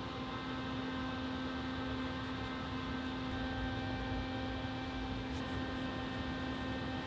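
Steady machine hum with a constant low tone over an even hiss, unchanging throughout.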